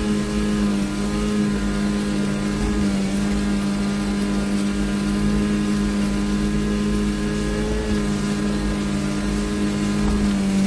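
A small 9.8 hp outboard motor running at a steady throttle, its drone holding one even pitch.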